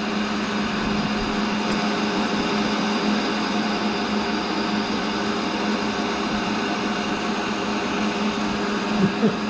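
Steady whir and low hum of a tool and cutter grinder's electric motor running, with no change in pitch.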